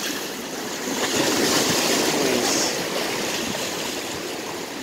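Sea waves washing and splashing against the rocks of a jetty, swelling about a second in and easing again after about three seconds.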